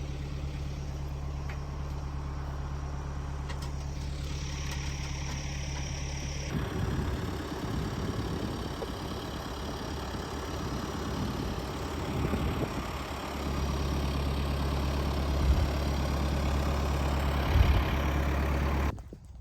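An engine idling steadily with a low hum, turning rougher and fuller for several seconds in the middle before settling back.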